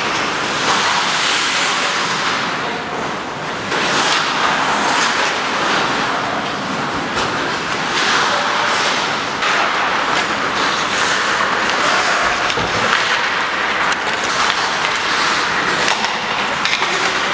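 Ice rink during hockey practice: a steady scraping hiss of skate blades carving the ice, with a few sharper knocks of sticks and pucks.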